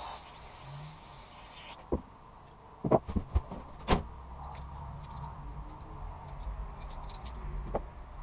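A hiss that stops before two seconds in, then a handful of sharp knocks, the loudest about three and four seconds in, with one more near the end.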